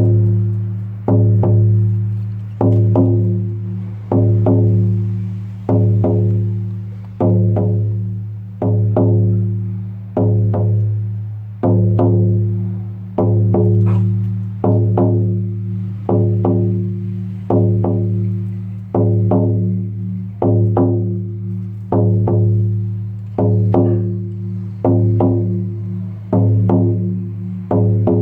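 Lakota healing frame drum struck in a slow, steady beat, about one stroke every second and a half, keeping a heartbeat rhythm. Each stroke gives a deep booming ring that fades before the next.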